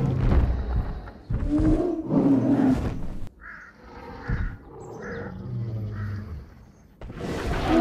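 Dubbed roar sound effects for a computer-animated stegosaur: two long, low roars in the first three seconds, then a quieter stretch of lower growling with four short higher calls, and another roar starting near the end.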